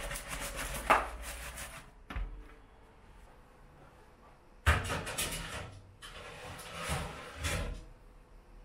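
Metal baking tray sliding and scraping across the countertop with its baking paper rustling, with a sharp knock about a second in. Just before the five-second mark comes a sudden metallic clatter as the tray is slid onto the oven rack, followed by further knocks.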